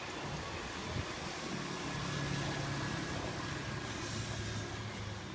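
Keirin pacing motorbike (derny) running as it leads the line of track cyclists past, its engine drone rising in level and then dropping in pitch as it goes by.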